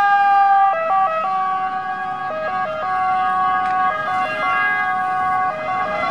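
Ambulance siren sounding its two-tone call, switching back and forth between a higher and a lower pitch.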